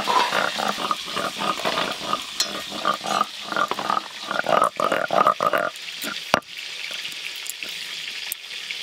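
Wet, cut pointed gourd pieces clattering in steel bowls as they are handled by hand, over a steady sizzle of fish frying in oil. The clattering stops about two-thirds of the way through, leaving the sizzle, and a single sharp knock follows soon after.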